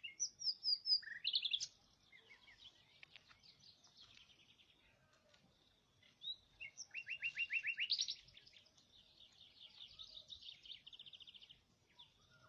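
A songbird singing: phrases of fast trills and chirps, loudest at the start and again about halfway through, with a softer trill near the end.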